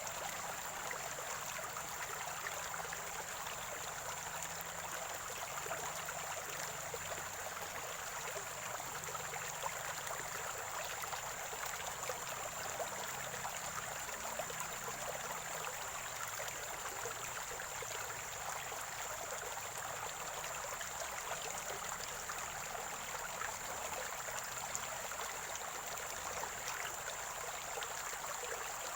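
Stream water gurgling and trickling steadily, an even rush flecked with small splashes.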